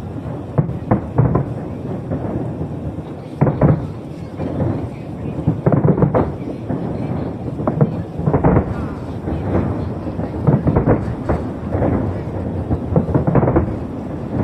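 Aerial fireworks exploding, a string of irregular booms one after another over a continuous low rumble.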